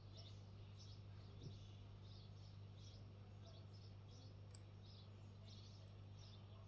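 Near silence: a steady low hum with faint, repeated high chirping in the background, about two or three chirps a second, and a faint tick about one and a half seconds in and another past the middle.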